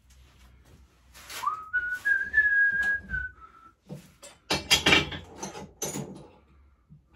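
A man whistles a short run of a few notes that climbs in steps and then drops back a little. About four seconds in, a short spell of clattering knocks follows as parts are handled.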